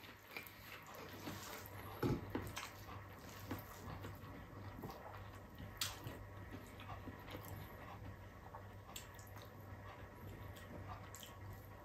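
Soft eating sounds: scattered small clicks and wet squishes of fingers picking rice and pork off a plate, and chewing, over a faint steady low hum.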